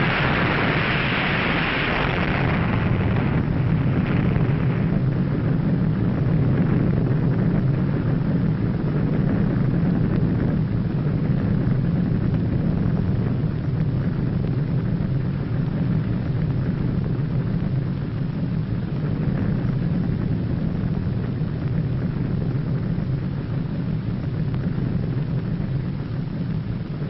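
Underwater nuclear explosion sound effect: a steady deep rumble, with a higher hiss over it that fades away within the first few seconds.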